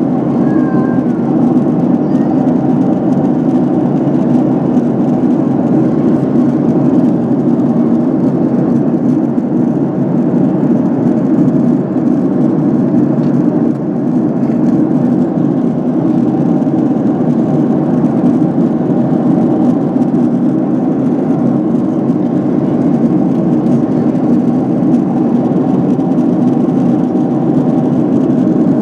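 Steady engine and airflow noise inside the passenger cabin of a Boeing 767-300 airliner, an even rushing sound that holds constant throughout.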